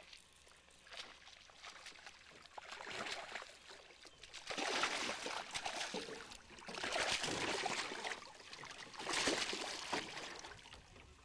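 Hooked largemouth bass thrashing and splashing at the water's surface in several bouts, the loudest about five and nine seconds in.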